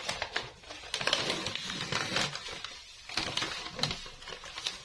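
Crinkling and crackling of a roll of self-adhesive sticker sheet being handled and its backing paper peeled off by hand: a run of irregular small clicks and rustles.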